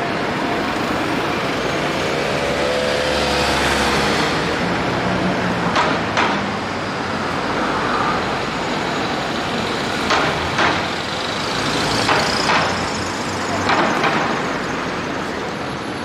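Steady noise of heavy road traffic passing close: engines and tyres of cars, taxis and buses, with a brief engine rising and falling in pitch a few seconds in. From about six seconds in come four pairs of sharp knocks, the two knocks of each pair about half a second apart.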